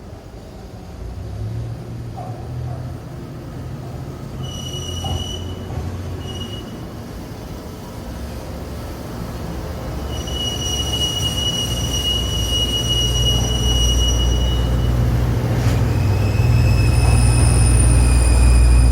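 Hokuetsu Express HK100 diesel railcar running on the rails, its low rumble growing steadily louder. A high-pitched steel wheel squeal comes in briefly about five seconds in, holds for several seconds in the middle, and starts again near the end.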